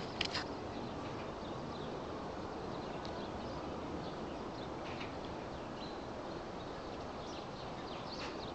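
Outdoor city ambience: a steady background hum with small birds chirping faintly here and there. A brief, sharp, high-pitched sound just after the start is the loudest thing in it.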